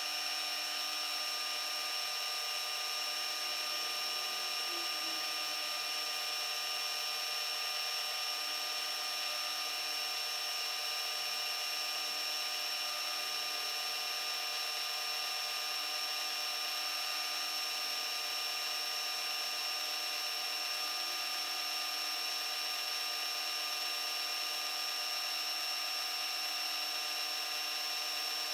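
Milling machine spindle running steadily while an end mill cuts the first channel into a small metal casting, a steady sound of several fixed tones that keeps an even level throughout.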